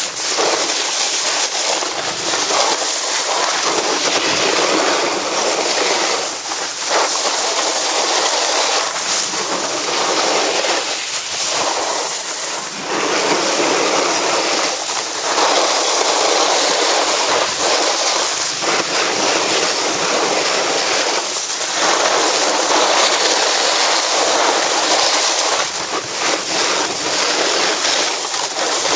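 Snowboard base and edges scraping over hard-packed snow on a fast run: a loud continuous rushing hiss that dips briefly every few seconds.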